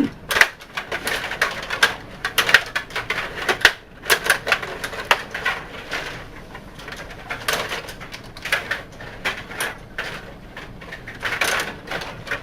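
Table hockey game in play: rapid, irregular clacking of the rod-turned players striking the puck and the boards. It is busiest in the first four seconds, thins out in the middle, then picks up again near the end.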